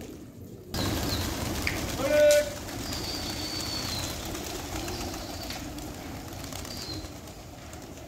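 A flock of domestic pigeons being flushed into flight: a dense rush of wingbeats and rustle starts suddenly just under a second in and carries on. A short loud call comes about two seconds in, and a few thin high chirps follow.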